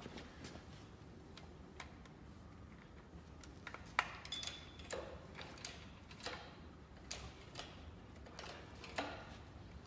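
Metal clicks and clinks of a hand tool working on the bare cylinder head of a Ford Fiesta 1.3 engine: a few faint clicks, then a sharp clink about four seconds in, followed by irregular taps and clinks.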